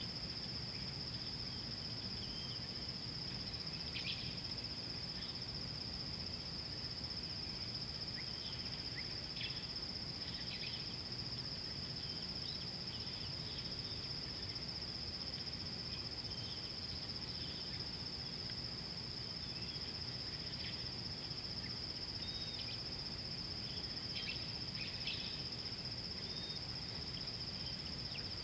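Insects trilling in one steady, unbroken high-pitched drone, with short scattered chirps here and there over low, even background noise.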